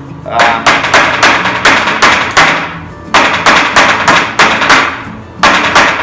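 Hammer blows on a scrap wood board, about three a second, in three quick runs with short pauses between them.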